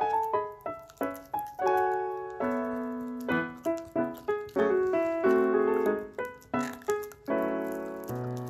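Background piano music: a light melody of separate notes, each struck and fading, with a few held chords.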